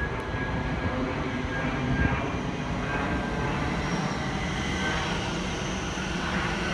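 Thameslink electric multiple unit running along the far platform, a steady rumble with a faint high electric whine that rises slightly near the end.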